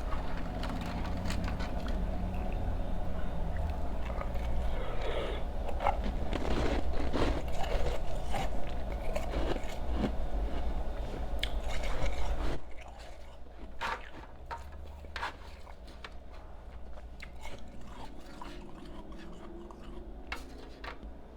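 Close-miked crunching and chewing of ice. The crunches are dense and loud for about the first twelve seconds, then drop suddenly to quieter, sparser chewing over a steady low hum.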